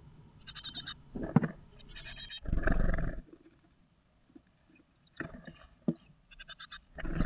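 Nearly fledged great tit nestlings in a wooden nest box, giving short runs of rapid, high, repeated begging calls. Knocks and scuffling of the chicks moving and flapping inside the box come between the calls; the loudest is a heavy scuffle lasting about half a second near the middle.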